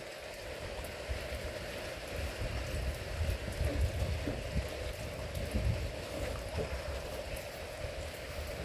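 Steady rain falling, with irregular low rumbles and bumps on the microphone throughout.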